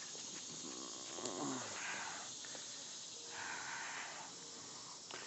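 Faint breathing close to the microphone, a few soft breaths over a steady low hiss.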